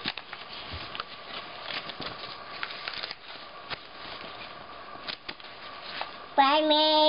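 Paper pages of an instruction booklet rustling and crinkling in small, irregular crackles as a baby handles and flips them. Near the end a long vocal sound held at one steady pitch begins.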